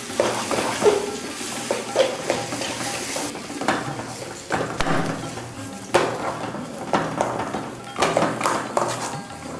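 A metal slotted spoon scraping and knocking against an aluminium kadai in irregular strokes as mashed potato filling is stirred and pressed, over a light sizzle from the pan on the flame.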